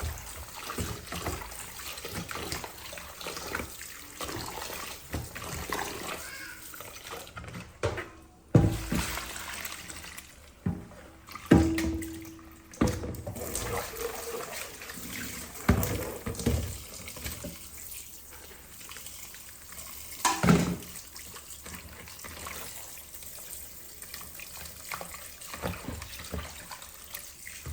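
Kitchen tap running into a sink while raw shrimp are washed and rubbed with salt by hand, with a few sharp knocks and clatters along the way.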